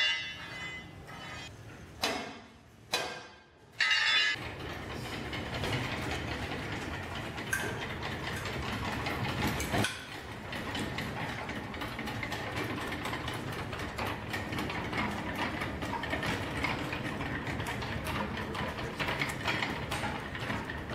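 Heavily loaded machine skates rolling under a CNC mill across a concrete floor: a steady rolling rumble with a dense clatter of small clicks. It starts about four seconds in, after a few short knocks and scrapes.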